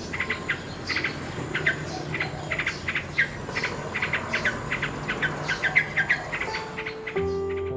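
Many short, high chirps in quick, irregular succession, several a second, each dropping quickly in pitch: small animals calling.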